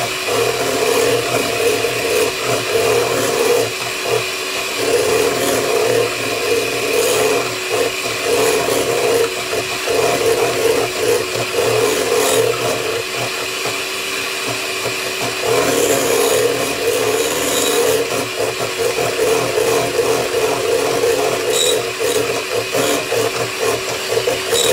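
Electric hand mixer running steadily, its beaters churning softened butter into a thick cookie batter in a glass bowl, with a constant motor whine under a rough, pulsing scrape.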